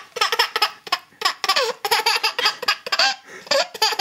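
Baby laughing hard in quick high-pitched bursts, about two a second, each one sliding up and down in pitch.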